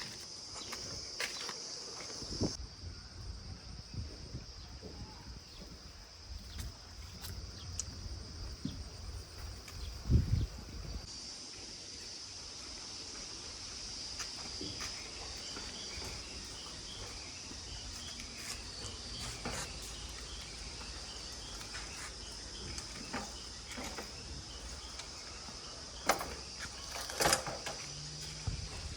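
Steady high chirring of insects, with a faint low rumble for the first third and scattered clicks. A loud low thump comes about ten seconds in, and a few sharp clicks come near the end.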